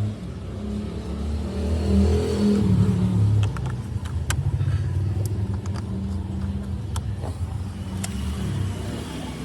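A car engine running, revving up briefly about two seconds in and then settling, with a few sharp clicks.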